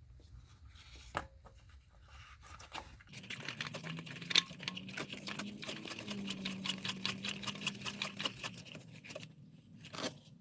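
New spin-on oil filter being screwed by hand onto the engine's filter housing: a dense run of rapid small clicks and scrapes from about three seconds in until near the end, after a couple of single clicks.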